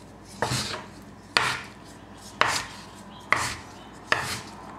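A knife blade knocking and scraping on a wooden board, five times at about one-second intervals, as dough stuck to the board is pried loose.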